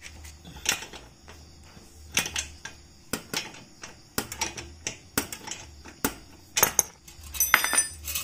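Irregular metallic clicks and clinks of a wrench working the nut off the lower mounting bolt of a Suzuki Satria FU's rear shock absorber, with a short metallic ring near the end.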